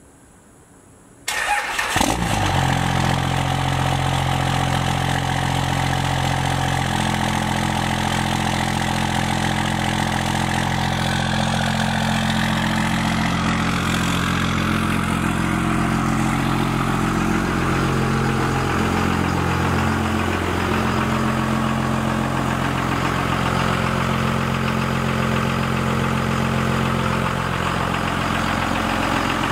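A 24-valve Cummins turbo-diesel truck engine starts about a second in and then idles steadily.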